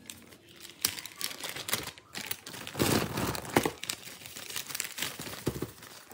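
Clear plastic zip-lock bag crinkling as its press seal is pulled apart and the bag is handled: irregular crackles, loudest around the middle.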